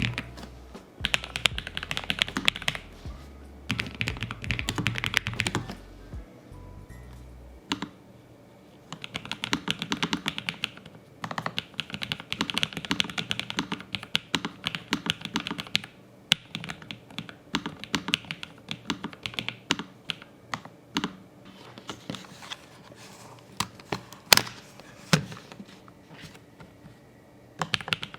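Typing on a Lofree low-profile mechanical keyboard: runs of rapid key clicks broken by short pauses, with one louder key strike near the end.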